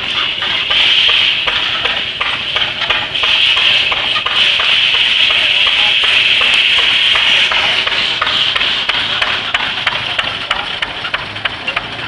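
52-inch circular sawmill blade cutting through a small walnut log, a loud high-pitched whine from about half a second in that dips briefly near 3 s and dies away near 9 s. The blade is underpowered, turning only about 300 rpm with dull teeth on a 6 hp Fairbanks Morse engine. Rapid sharp knocks run underneath.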